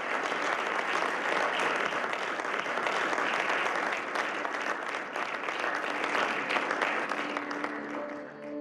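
A roomful of seated players applauding: dense, steady clapping that eases off near the end as soft ambient music comes in.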